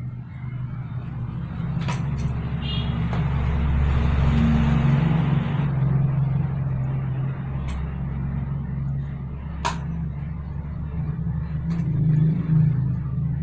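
A vehicle engine running with a steady low drone that swells a few seconds in and eases off, with four sharp metallic clicks of a hand tool on a motorcycle wheel hub.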